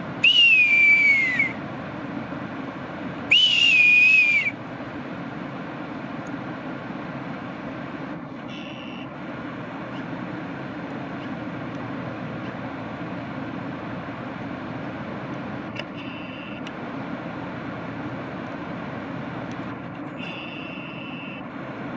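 Two loud, high whistled calls, each about a second long and falling in pitch, with a few much fainter calls later, over a steady low hum.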